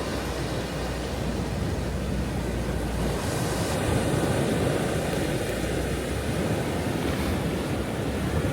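Ocean waves breaking and washing on a shore, a continuous surging rush that swells and ebbs, with a deep rumble underneath.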